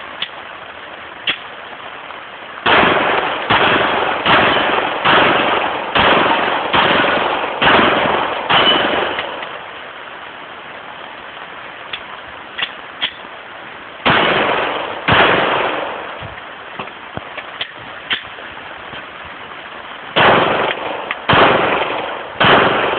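Handgun shots: a string of eight evenly paced shots a little under a second apart starting a few seconds in, two more about halfway through, and another quick group near the end, each with a short echo. Fainter pops are heard between the strings.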